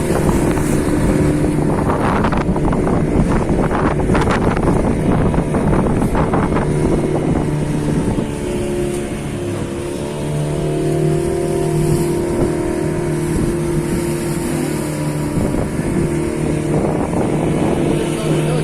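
A small fishing boat's engine running under way, a steady drone with wind on the microphone. About halfway through the engine note dips and wavers, then settles back to a steady pitch.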